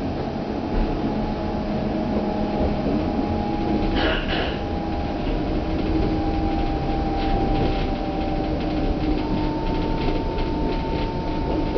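Berlin S-Bahn electric train running, heard from inside the carriage. The traction motors whine in several steady tones that shift in pitch over the ride. There is a short hiss about four seconds in, and clicks from the wheels over rail joints in the second half.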